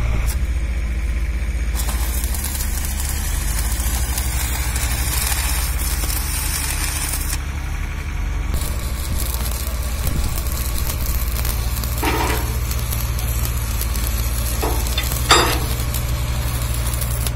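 Electric arc welding crackling steadily along the seam of a 6 mm mild steel pile liner, over a steady low machine hum. Two short metallic knocks come about two thirds of the way through and near the end.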